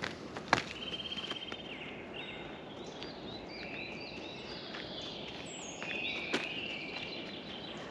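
Several songbirds singing, with chirps, short whistled phrases and a quick trill about a second in, over a hiker's footsteps on a path. A sharp click about half a second in and another about six seconds in stand out.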